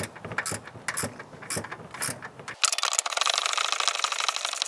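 Ratchet wrench with a 13 mm socket clicking while the upper control arm bolts of a Tesla Model 3's front suspension are tightened: separate clicks at first, then a fast, continuous run of clicks from a little past halfway.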